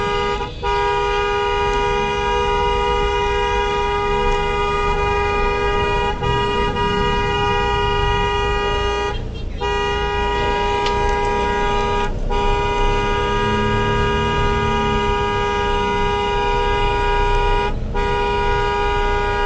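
A two-tone car horn held down almost without let-up, stopping for a moment about half a second in, again around nine and twelve seconds, and near the end, over low road and engine rumble. The long, near-constant honking comes amid a dispute between two drivers.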